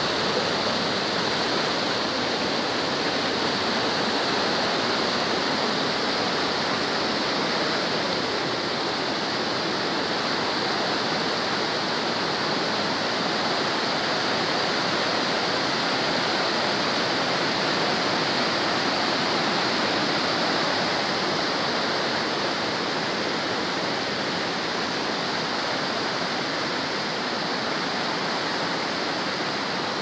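Waterfall in heavy flow, whitewater pouring over rocks with a steady rushing noise.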